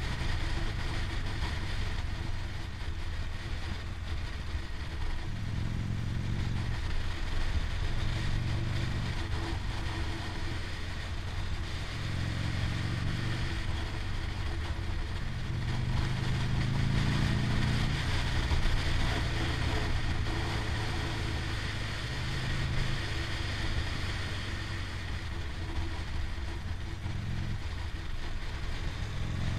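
Motorcycle engine running on the move, with wind rushing over the microphone. The engine note rises and falls several times as the revs change.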